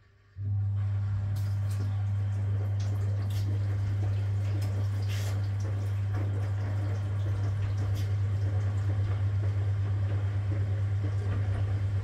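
1962 Constructa K4 washing machine: a steady electric hum switches on abruptly just after the start, with water rushing in the machine, and cuts off abruptly about eleven seconds later.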